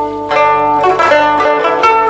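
Background music: a melody of plucked string notes, each note struck sharply and left to ring, changing several times a second.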